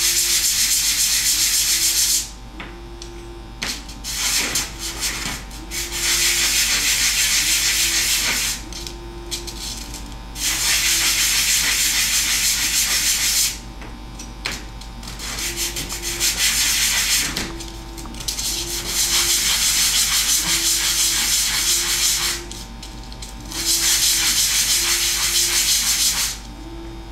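Small wooden kit pieces rubbed back and forth on a sheet of sandpaper laid flat: a light hand sanding. It comes in bouts of two to four seconds separated by short pauses, with a few small clicks in the pauses.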